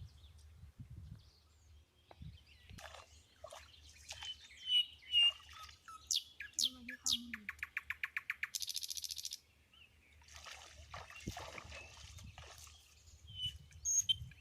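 Wild birds calling: scattered chirps, a few quick falling whistles, then a rapid trill of about ten notes a second about halfway through, followed by a short harsh buzz.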